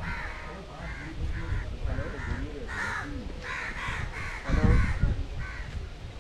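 Crows cawing in a steady run of calls, about two a second. A brief low rumble comes about two-thirds of the way through.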